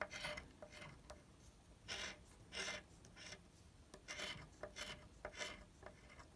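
Scratch-off lottery ticket being scratched: a series of short rasping strokes, roughly two a second, as the coating is scraped off the play area.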